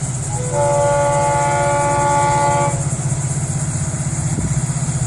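Florida East Coast Railway freight locomotive's multi-chime air horn sounding one long blast of about two seconds, a chord of several notes, over the steady low rumble of the train.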